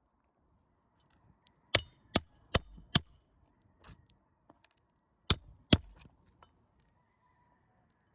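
Hammer blows driving roofing nails into an asphalt shingle repair: four quick sharp strikes, then two more a few seconds later.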